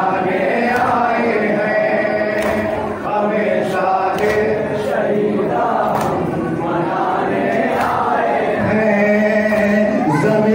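A group of men chanting a nauha, a Shia mourning lament, in chorus, with sharp slaps of hands striking chests (matam) keeping a steady beat under the chant.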